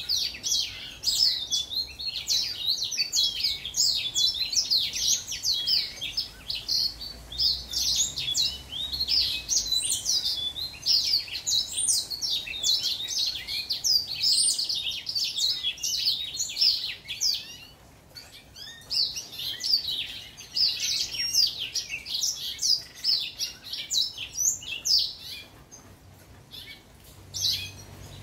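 Young male house finch singing a long, fast warble of varied rising and falling notes, broken by a short pause about two-thirds of the way through before the warbling starts again.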